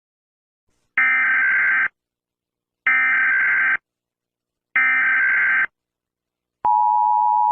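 Emergency Alert System tones: three bursts of SAME digital header data, each about a second long and about a second apart, then the steady two-tone EAS attention signal starts near the end.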